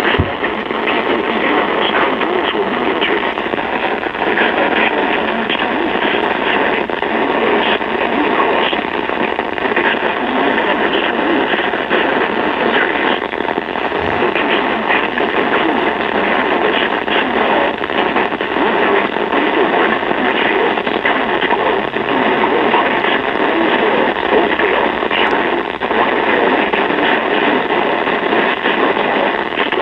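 Radio static: a steady, loud hiss with fine crackle, thin and tinny, as from a radio receiver on a weak or empty signal.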